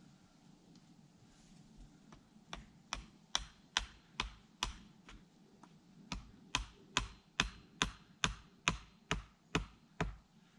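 Hammer blows in two runs of about two or three strikes a second, each run starting with lighter taps and growing to harder strikes, with a short pause between the runs.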